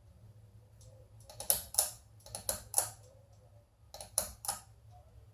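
A run of sharp clicks, several in quick succession about a second and a half in and again near the end, over a steady low hum.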